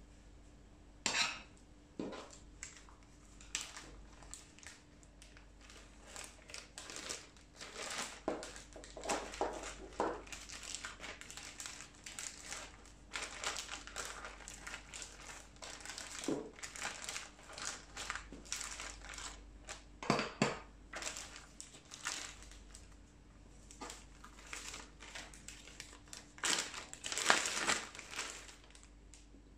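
Thin plastic zipper bags crinkling and rustling in irregular bursts as they are opened and a piece of braised pork belly is slid into one with metal tongs, with a few sharper clicks among them.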